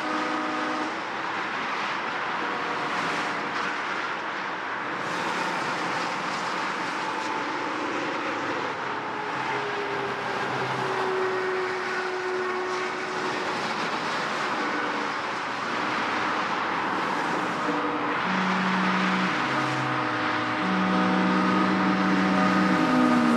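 Heavy road traffic: a continuous wash of engine and tyre noise from many vehicles, with held steady tones sounding now and then, growing somewhat louder towards the end.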